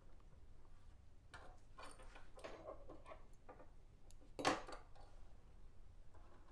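Quiet handling noises at a jammed front-loading sewing machine: small clicks and rustles of the tangled thread and fabric being worked free, with one sharper knock about four and a half seconds in.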